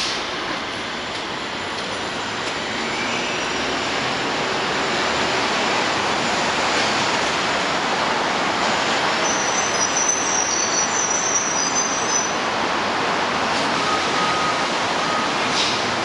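An R160B subway train with Siemens propulsion pulling out of the station and picking up speed, with a steady rumble of wheels on rail. A thin high squeal is heard briefly about ten seconds in.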